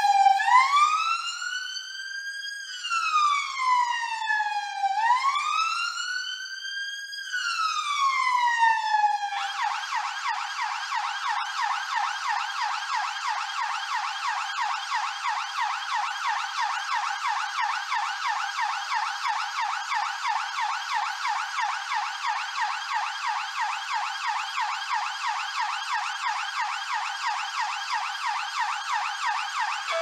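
London police car's electronic siren on a slow wail, its pitch rising and falling about every four and a half seconds. About nine seconds in, it switches to a fast yelp of about three sweeps a second, which runs on steadily.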